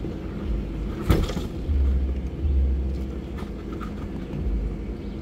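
Jeep engine running at a slow crawl over rocky ground, with uneven low rumbling and a sharp knock about a second in.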